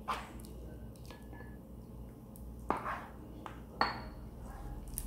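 Plastic rice paddle scooping sushi rice and knocking against a dish: three sharp taps with fainter clicks between, the last tap with a brief ring.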